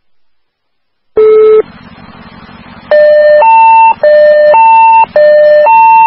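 Radio dispatch alert tones over a police and fire scanner: one short beep, then a loud two-tone alert alternating low and high three times, with open-channel hiss between the tones. It is the alert that precedes an all-call to EMS units.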